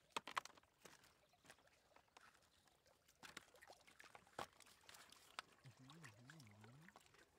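Wet knocks and clicks as catfish are tipped from a woven bamboo tray into a plastic basket and the tray bumps the basket, the loudest just after the start, then scattered knocks with faint water trickling and splashing. A brief wavering voice sounds about six seconds in.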